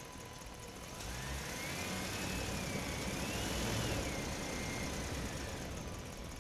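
A motor running with a whine that wavers up and down in pitch over a low rumble. It swells in about a second in and fades out near the end.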